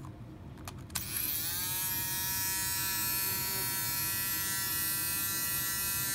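Tiny single-head rotary USB electric shaver starting up about a second in, after a couple of handling clicks: its small motor spins up with a quick rising whine, then runs at a steady high-pitched buzz.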